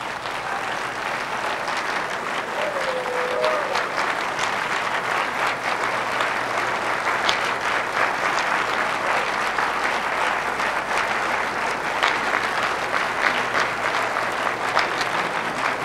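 Large audience applauding, building up over the first couple of seconds and then holding steady.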